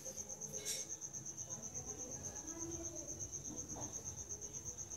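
A steady, high-pitched, rapidly pulsing trill like an insect's chirping, with faint voices low in the background.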